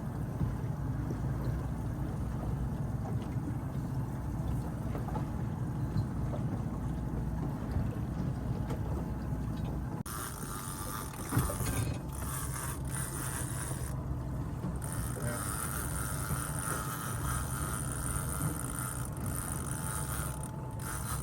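Fishing boat's engine running steadily with water and wind noise, a low rumble throughout. A higher hiss joins about ten seconds in.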